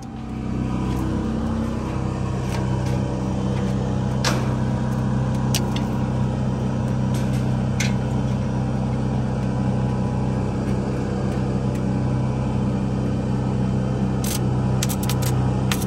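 An engine running steadily at an even speed, with a few sharp clicks or knocks over it.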